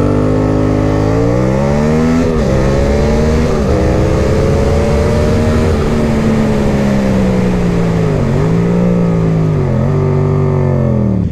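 Yamaha MT-07 parallel-twin with an unbaffled SC-Project exhaust pulling hard under full acceleration. The revs climb and drop sharply twice as it shifts up, then hold before the engine winds down, with the pitch dipping and recovering twice. Wind rushes steadily over the microphone throughout.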